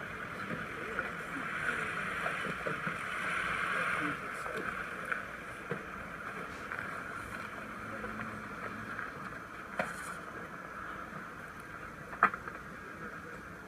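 Steady outdoor hiss with faint far-off voices, and two short sharp clicks, the louder one near the end.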